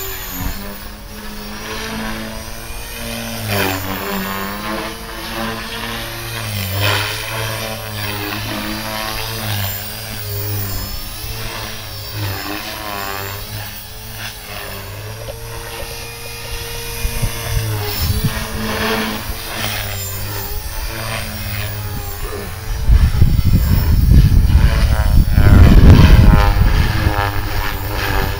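Align T-Rex 450 Pro electric RC helicopter in flight: the whine of its motor and main rotor rises and falls in pitch as it manoeuvres. For about the last five seconds a loud low rumble covers it.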